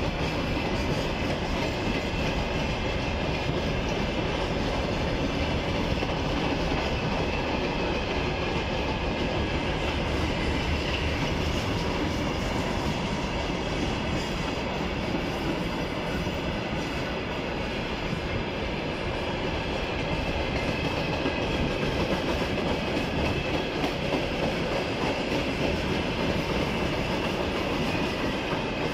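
Wagons of a long freight train rolling past at speed, a steady rumble of steel wheels on the rails. Open gondola wagons give way to rail tank cars partway through.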